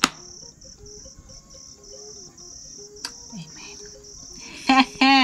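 Crickets chirping: a high, steady trill broken into short runs. A sharp click at the start and another about three seconds in; a woman's voice comes in briefly near the end.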